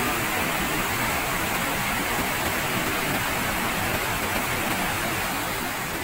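Waterfall and white-water river rushing: a steady, dense wash of water noise that begins to fade near the end.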